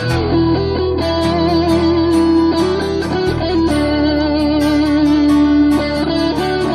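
Rock song in an instrumental break: an electric guitar plays held, bending lead notes over rhythm guitar, bass and drums with regular cymbal hits.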